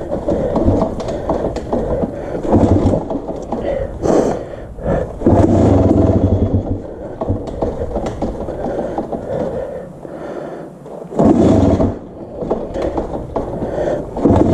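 1999 Honda CR250 two-stroke single-cylinder engine running unevenly, surging in several loud bursts with dips between as it struggles to stay running. It dies when put in gear, almost like it's running out of fuel.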